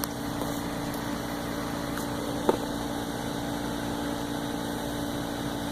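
Steady electric hum of a chest freezer's compressor running, with one sharp click about two and a half seconds in.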